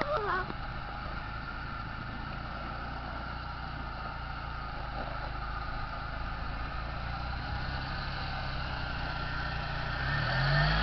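Lifted Jeep Wrangler's engine running as it crawls off a snowbank onto the pavement, rising in pitch and getting louder near the end as it revs.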